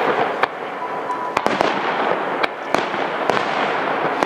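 Aerial firework shells bursting overhead: about eight sharp bangs at irregular intervals, some close together, over a steady background of noise.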